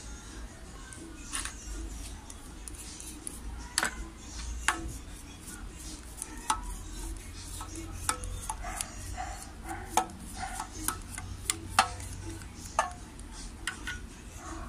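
Irregular clicks and taps of metal handling at a SEC-E9 key cutting machine as the freshly cut key is unclamped and metal shavings are brushed off the clamp, over a low steady hum.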